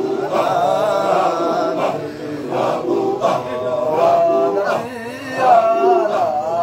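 A man's voice chanting Sufi Qadiriya dhikr into a handheld microphone, in drawn-out, wavering sung phrases.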